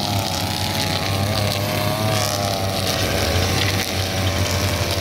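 Backpack brush cutters running at high revs, their spinning nylon line cutting grass. The engine note is steady, wavering slightly in pitch as the machines are swung.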